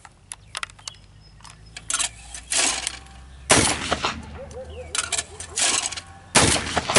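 Shotgun firing at thrown clay targets: several sharp shots, the loudest about halfway through and near the end.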